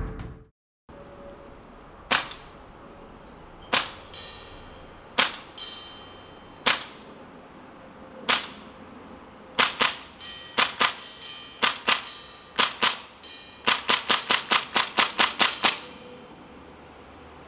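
Tokyo Marui USP gas blowback airsoft pistol firing, each shot a sharp crack with the slide's clack. Single shots come a second or two apart, some followed by a fainter tap. They then come in quicker pairs and end in a fast string of about ten shots.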